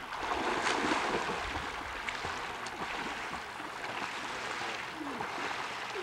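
Swimming-pool water sloshing and lapping as a person wades and pushes an inflatable float, loudest in the first second or so.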